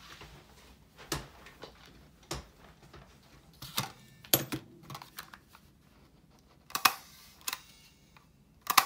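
Stapler clacking as it is pressed through a small stack of paper and card scraps: a series of sharp clacks at uneven intervals, the loudest a quick double clack near the end.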